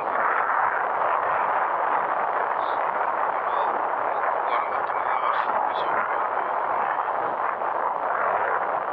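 Steady rush of wind and road noise on the microphone of a camera riding on a moving motorcycle.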